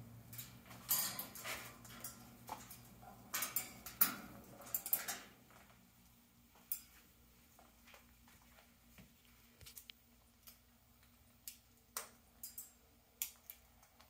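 Amazon parrot's claws and beak clicking and scraping on its cage top and on a wood and leather toy. A cluster of scratchy taps comes in the first five seconds, then scattered single clicks.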